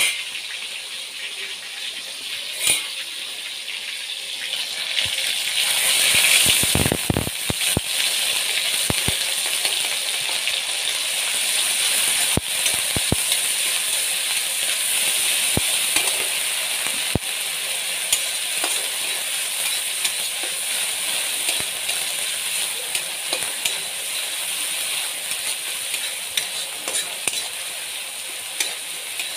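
Onion and garlic-leaf paste frying in oil in an aluminium kadai, sizzling steadily while a spatula stirs and scrapes it, with scattered clicks of the spatula against the pan. The sizzle grows louder about six seconds in.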